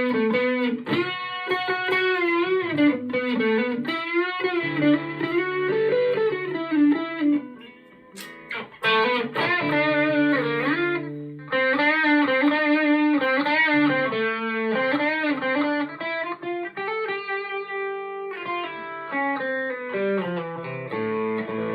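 Electric guitar played through a Marshall MG50 FX amplifier with a pedal switched in. Single-note lead lines with string bends and vibrato, a brief pause about eight seconds in, then more lead playing ending on held chords.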